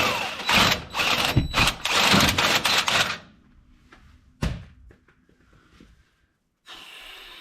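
Power drill boring out a hole, run in several short bursts, stopping about three seconds in. A single knock follows a little later.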